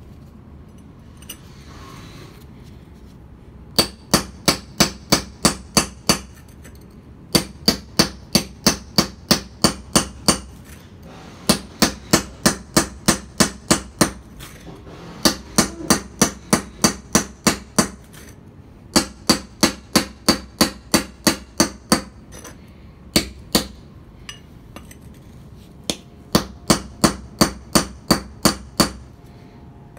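A hammer striking a mason's chisel held on a concrete paving stone, scoring a line to split the block. Sharp, ringing metal-on-metal taps come about three or four a second in runs of several seconds, with short pauses between runs.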